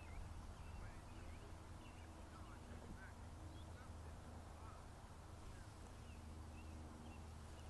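Faint outdoor ambience: a steady low hum with scattered faint, short bird calls.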